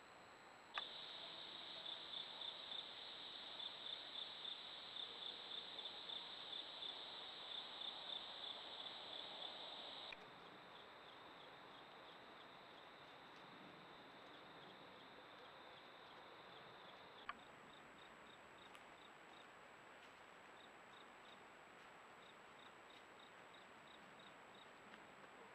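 Insects chirping in a steady, rapid pulsing rhythm, high-pitched. The chirping is plainest for the first ten seconds or so, drops fainter after a click, and fainter again after another click about seventeen seconds in.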